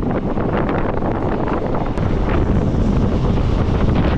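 Wind buffeting the microphone held out of a moving passenger train's open door, over the train's running rumble on the rails. About halfway through there is a sudden change, after which the low rumble is heavier.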